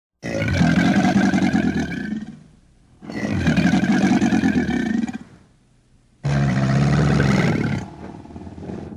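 Alligator calling: three long, rough, low-pitched calls of about two seconds each, separated by short pauses.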